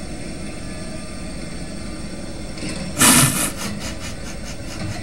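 Robot vacuum cleaner running with a steady motor hum, and a sudden loud burst of noise about three seconds in, as the cat riding it tumbles onto the floor.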